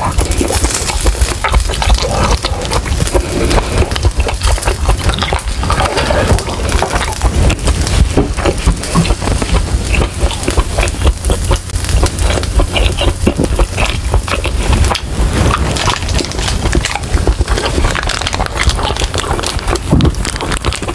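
Close-miked chewing of a mouthful of food with wet lip-smacking, a dense run of clicks and smacks.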